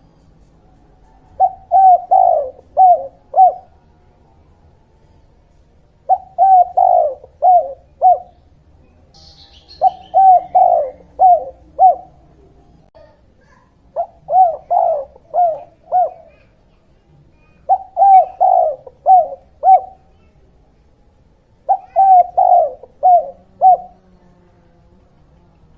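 Spotted dove (tekukur/derkuku) cooing: a phrase of four or five low coos, repeated six times about every four seconds. A faint high chirp comes once between phrases.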